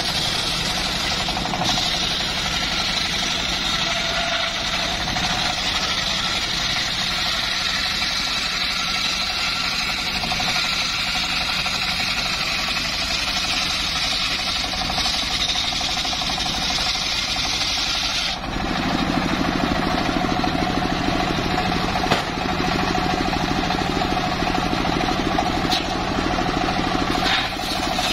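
Engine-driven homemade circular sawmill running steadily, its large blade ripping through teak logs with a constant engine drone and blade whine. The sound changes abruptly about two-thirds of the way through as the cut shifts.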